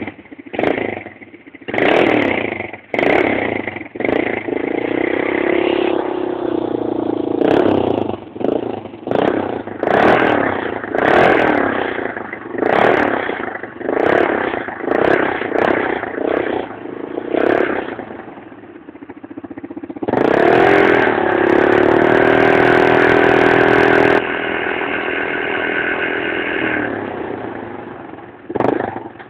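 Vehicle engine being revved in the stationary position: a long series of short throttle blips rising and falling in pitch, then held steady at high revs for about four seconds two-thirds of the way through, easing to a lower steady hold and dropping back, with one more quick blip near the end.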